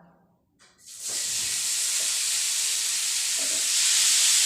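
Boiled amla (Indian gooseberries) going into hot oil with fennel and nigella seeds in a pan, sizzling with a steady hiss that starts about a second in.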